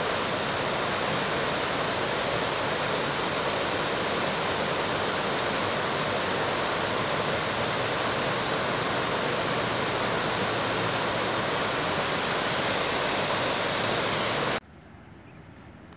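Muddy floodwater rushing steadily across a flooded stream crossing. The rush cuts off suddenly near the end, leaving a much quieter hiss.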